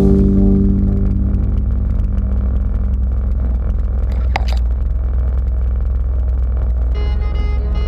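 Quad bike (ATV) engine running steadily with a low rumble while driving, with a single short knock about four seconds in. Background music fades out at the start and comes back in near the end.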